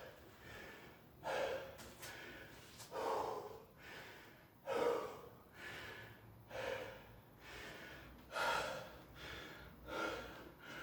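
A man breathing hard and deep, panting to recover after an intense set of squat thrusts. A loud breath comes about every second and a half to two seconds, with softer breaths in between.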